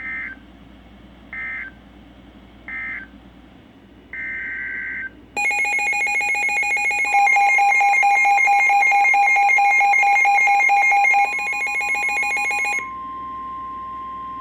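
Emergency Alert System signalling: three short warbling data bursts about 1.4 s apart, the end-of-message code of one alert, then one longer data burst, the SAME header of the next. About five seconds in, a loud, buzzy multi-tone alert signal starts. About two seconds later the steady single tone of the NOAA Weather Radio warning alarm joins it, and that tone carries on alone near the end.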